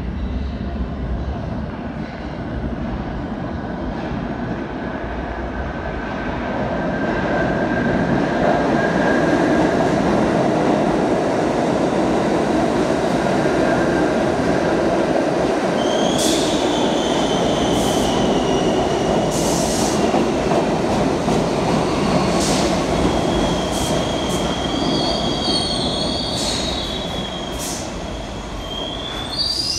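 R142 subway train pulling into a station: a rumble that grows louder about a fifth of the way in, then high-pitched wheel squeals from about halfway as it slows to a stop.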